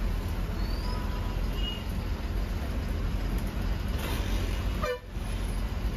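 Steady engine and road rumble of a moving bus, with a short vehicle-horn toot about a second in. The sound drops out for an instant about five seconds in.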